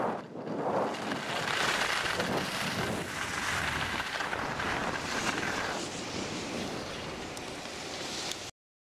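Wind rushing over the microphone of a skier moving downhill, mixed with the hiss of skis sliding on snow, in gusts that swell and ease. It cuts off suddenly near the end.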